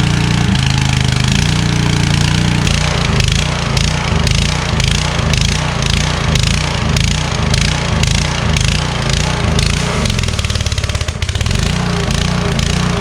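Rebuilt pressure washer's small petrol engine running, steady at first, then pulsing unevenly about twice a second from a few seconds in: the engine is surging while still cold, which the owner puts down to it needing to warm up.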